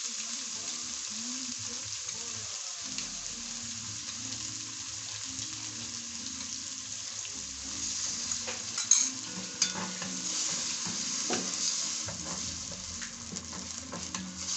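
Onion, tomato, grated carrot and Royco frying in oil in a pan, sizzling steadily. A spoon stirs and knocks against the pan a few times, and the sizzle grows louder in the second half.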